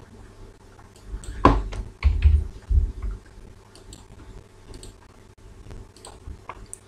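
Computer keyboard keys and mouse buttons clicking sparsely while values are entered into a form. There is a sharp click about one and a half seconds in, with a few dull thumps just after it.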